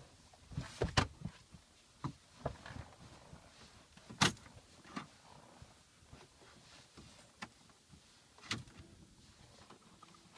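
Irregular clicks and knocks from handling things around a car, with sharp thumps about a second in, about four seconds in and again near the end; no engine is running.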